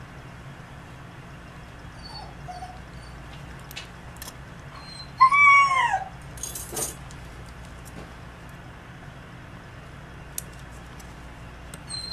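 A dog whimpering: one loud high whine falling in pitch about five seconds in, with fainter squeaks before it. A few faint sharp clicks and a steady low hum lie underneath.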